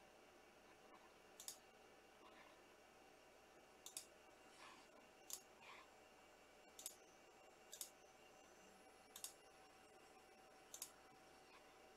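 Faint, sharp clicks, seven in about twelve seconds, most of them in quick double pairs, with a couple of soft rustles between.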